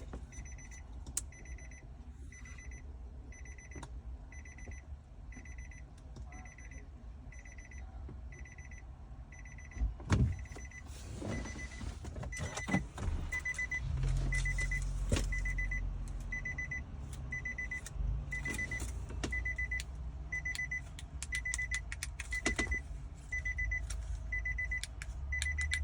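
A car's electronic warning chime beeping over and over at one steady pitch. From about ten seconds in there are clicks and handling knocks, and a low hum comes in a few seconds later.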